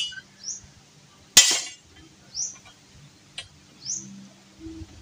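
Two sharp, ringing clinks about a second and a half apart, then a fainter click, from work on the hut frame. A bird repeats a short, high call that rises in pitch, about every one and a half to two seconds.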